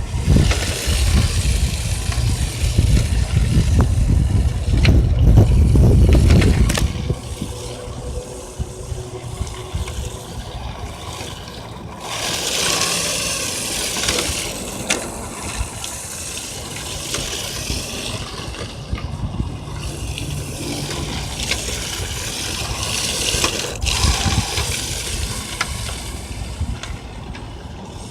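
Electric RC drift car, a Redcat Lightning EPX, driving and drifting on asphalt: its motor whines and its 3D-printed TPU tires scrub across the pavement, the sound swelling and fading as the car comes and goes. A heavy wind rumble on the microphone over the first several seconds.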